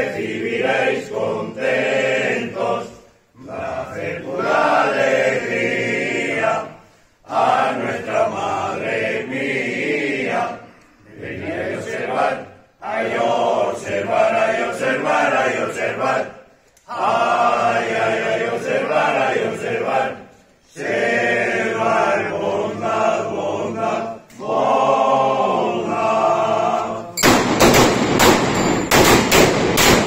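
A group singing a traditional dawn hymn to San Blas, the despertadores, in phrases a few seconds long with short breaks between them. About 27 seconds in, several shotguns fire a rapid volley of salvos over the singing.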